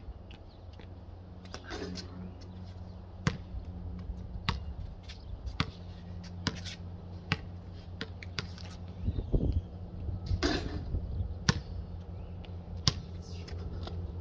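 Basketball being dribbled on an outdoor concrete court: sharp, single smacks of the ball on the slab, roughly one a second at uneven spacing. A steady low hum runs underneath.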